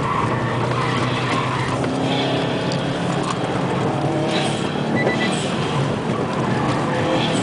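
Car engine running with tyre and road noise as the car drives over concrete slabs, heard from inside the cabin.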